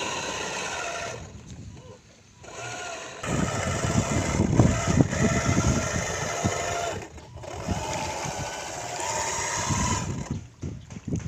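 Small motor of a remote-control model fishing boat whining, cutting in and out and shifting in pitch with the throttle, rising near the end. A low rumbling noise lies under it in the middle.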